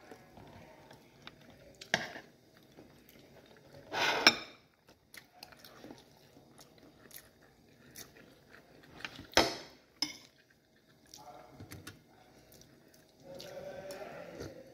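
A person eating rice with a spoon close to the microphone: quiet chewing with small clicks and a few sharper spoon knocks. Near the end, a sip from a mug.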